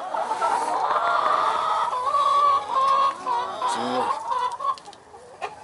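A flock of young Easter egger chickens clucking and chattering, many calls overlapping, dying down about five seconds in.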